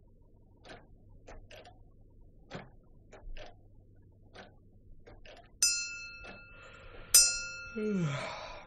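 A clock striking: three ringing bell strikes about a second and a half apart in the second half, after several seconds of faint ticking. A brief falling vocal sound comes just before the last strike.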